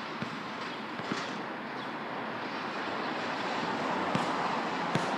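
A steady rushing background noise, growing slowly louder, with a few short sharp thuds of a basketball bouncing on the court and hitting the backboard.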